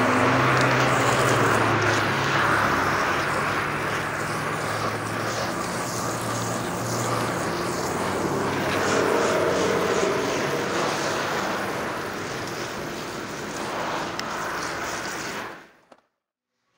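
Water from a garden-hose spray nozzle hissing and splashing onto a motorcycle tyre and rim, rinsing off the soapy water used to check the bead for air leaks. A low steady hum sits underneath for the first several seconds, and the sound fades out near the end.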